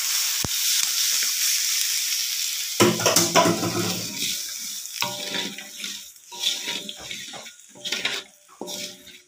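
Ground spice paste sizzling in a hot wok with a little liquid, stirred with a wooden spatula. The steady sizzle breaks into a louder burst about three seconds in, then dies down to intermittent stirring sounds.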